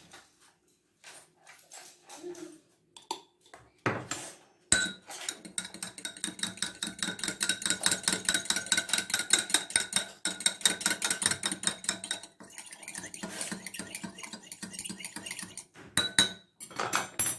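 A metal spoon stirring briskly in a glass, clinking rapidly and evenly against its sides for about ten seconds, with a ringing note from the glass. A few separate clinks come before and after the stirring.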